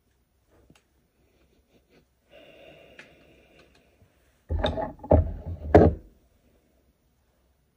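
Handling noise from working a part loose inside an amplifier chassis: a few small clicks and knocks, then, about four and a half seconds in, the loudest stretch, a second and a half of heavy breaths of effort and scraping with three sharp clicks.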